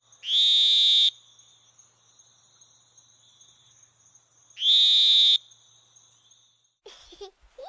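Sound effect played back: two identical short, loud electronic tones, each under a second, about four seconds apart, with a faint high steady tone running on between them.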